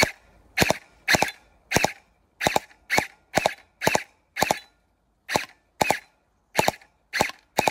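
Battery-powered UZI-style gel blaster firing single shots, about fourteen sharp pops at roughly two a second, with a brief pause about five seconds in.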